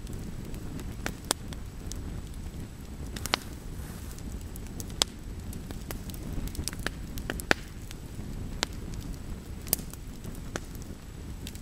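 Pile of shredded paper burning in an open fire, a steady low rumble of flame with irregular sharp pops and crackles, several of them loud snaps.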